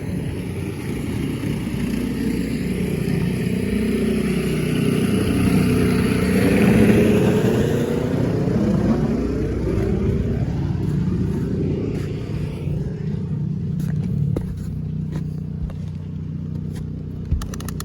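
An engine running, growing louder to a peak about seven seconds in and then fading away, with a few sharp clicks near the end.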